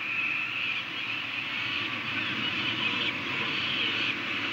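Peregrine falcon chicks giving continuous high begging cries while being fed, over a steady low background noise.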